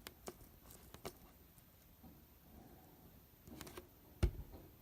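Scattered small clicks from handling, followed by a single louder knock near the end.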